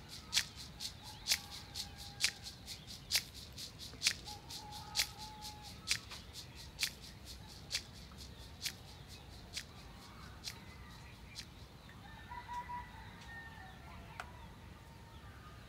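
Quiet outdoor ambience with a very regular series of sharp clicks, about one a second, growing fainter until they die away. A few short bird calls come near the end.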